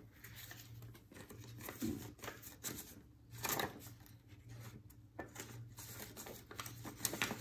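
Paper banknotes and a clear plastic cash envelope rustling and crinkling softly as hands count out dollar bills, in a handful of short, irregular rustles.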